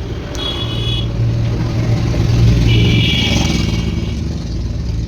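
A motor vehicle engine running close by, swelling in loudness towards the middle and easing off near the end, with two brief high-pitched tones.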